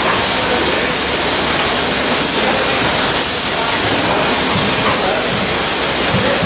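Steady mechanical din of an industrial bread line's crate conveyors and crate-handling machinery running, with no clear rhythm or pitch.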